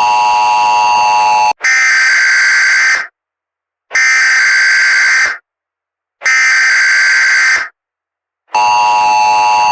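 Emergency Alert System broadcast tones. A steady two-tone attention signal runs until about a second and a half in. Then come three raspy data bursts of about a second and a half each, with short silences between them. The steady attention signal starts again near the end.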